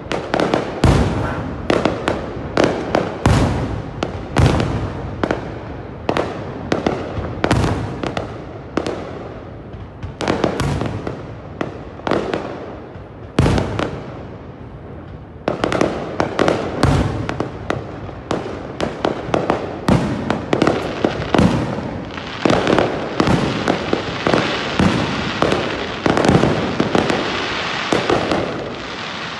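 Fireworks display: aerial shells bursting one after another in quick succession, with two brief lulls about a third and halfway through. After that the bursts come thicker and run into a continuous crackling.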